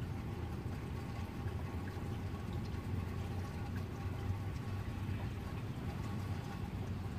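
Steady rain falling, with a low steady rumble underneath.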